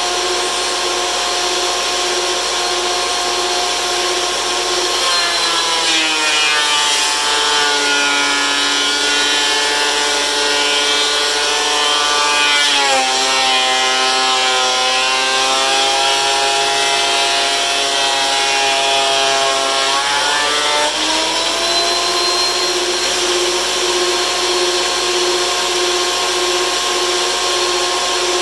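DeWalt benchtop thickness planer running steadily, then slowing to a lower pitch for about fifteen seconds as its cutterhead takes a board through, dipping lower once midway, before rising back to full free-running speed as the board clears.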